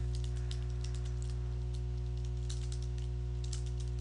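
Computer keyboard keys clicking in quick, uneven runs as a phrase is typed, with a short pause near the middle. A steady low hum runs underneath.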